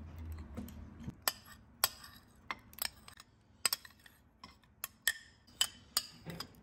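A metal spoon clinks and taps against a small ceramic bowl and a glass mixing bowl while ingredients are scraped and tipped in. There are about a dozen sharp, irregular clinks with a light ring.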